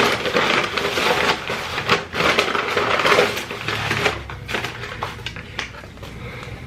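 Close-miked crinkling and crackling of McDonald's paper wrappers and packaging being handled and opened.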